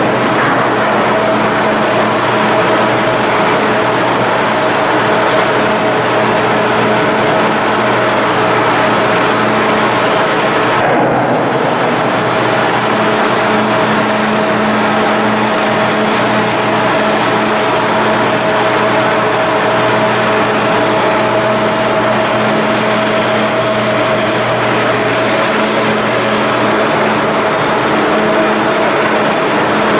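Steady mechanical drone of running machinery with several held tones, dipping briefly about eleven seconds in.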